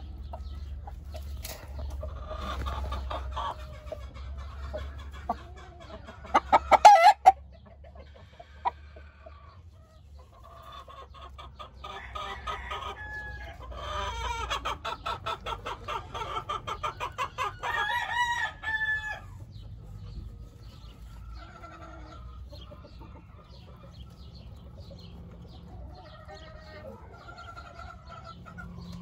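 Roosters crowing and clucking, with crowing calls through the middle. A quick run of sharp clicks about seven seconds in is the loudest sound, over a low steady hum.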